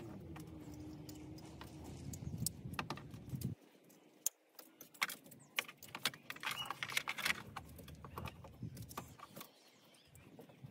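Faint clicking and rattling of plastic wire-harness connectors and loose wires being handled and pushed together. A low hum sits under it for the first few seconds and stops abruptly.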